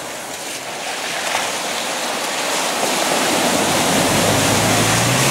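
Water splashing and surging as a Mitsubishi L200 pickup wades through a flooded ford, growing steadily louder. The truck's engine note comes in under the splashing about four seconds in.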